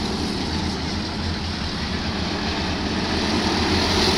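Several Junior Champ racing karts' small engines buzzing steadily as they race around the oval. The sound grows louder over the second half as the karts come closer.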